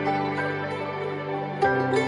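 Instrumental background music: a held bass note under higher melody notes, the bass moving to a new note near the end.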